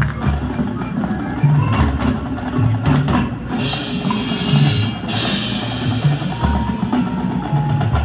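High school marching band's percussion playing: low bass-drum hits about once a second under mallet keyboard percussion, with two bright crashes around the middle.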